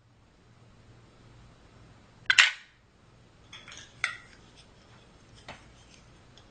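One sharp clack a little over two seconds in, followed by a few softer clicks and a knock, like hard objects being handled.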